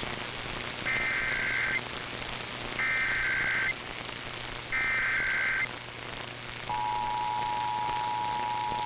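Emergency Alert System tones off a radio broadcast: three SAME header data bursts, each about a second long, then about two-thirds of the way in the steady two-tone EAS attention signal (853 and 960 Hz), all over background hiss.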